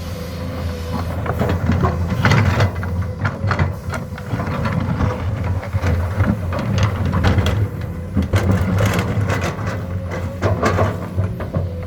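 Komatsu excavator's diesel engine running steadily under load, with irregular clanks and rattles throughout from the machine at work.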